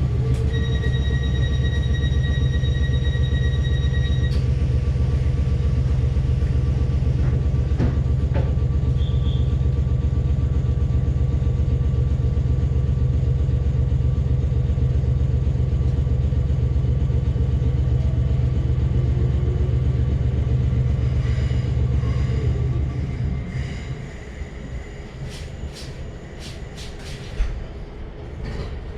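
Electric suburban train running: a loud, steady low rumble that drops away after about 23 seconds. A few sharp clicks follow near the end.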